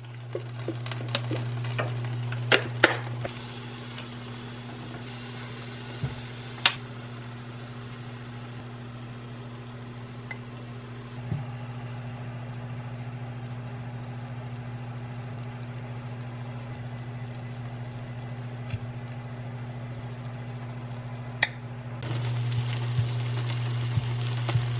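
Food sizzling in a pan over a steady low hum, with a few sharp clinks of a utensil against cookware.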